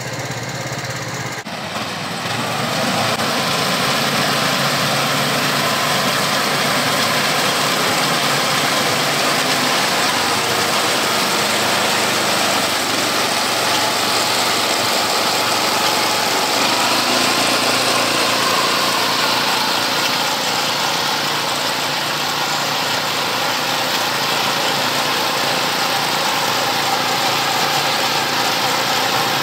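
Walk-behind rice reaper's small petrol engine running steadily under load while its cutter bar mows standing rice; it gets louder about a second and a half in.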